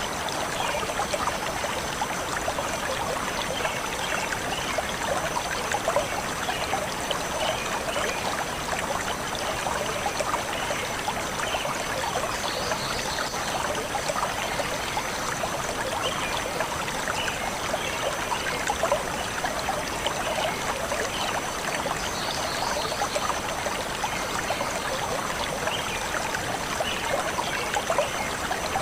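Stream water flowing steadily with an even, continuous rush and trickle.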